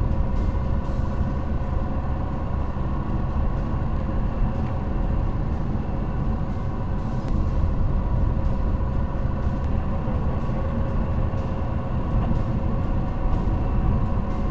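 Steady low rumble of a car driving on a gravel road, heard inside the cabin through a cheap dash cam and sped up, with faint scattered ticks over it.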